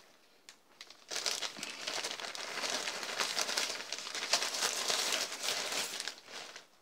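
Clear plastic bag crinkling as hands rummage in it and pull a small tool out. It starts about a second in and stops shortly before the end.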